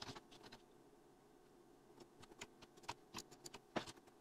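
Faint, sharp clicks of a computer mouse and keyboard in near silence: a few at the start, then a quicker, irregular run of about eight from two seconds in.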